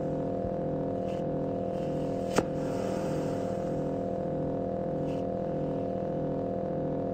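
Live-coded electronic drone from SuperCollider sawtooth synths: sustained steady pitched tones over a lower layer that pulses in an even rhythm, with one sharp click about two and a half seconds in.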